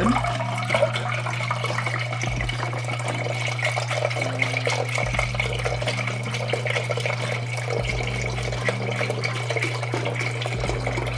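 Chicken stock poured in a steady stream from a carton into a stainless steel pot, the liquid splashing into the stock already in the pot.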